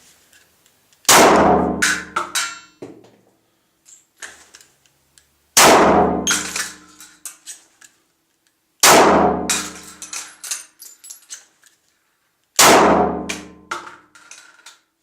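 Four pistol shots from a 9 mm Glock 17, fired one at a time about three to four seconds apart. Each loud shot is followed by a ringing tail and a few small clinks.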